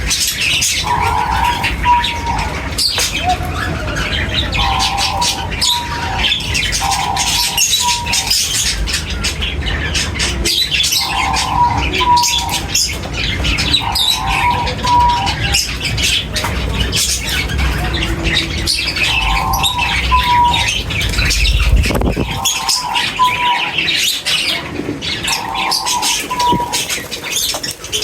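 A flock of birds chirping and squawking, with one short two-note call repeating every two to three seconds over many high chirps. A low rumble lies underneath and drops away late on.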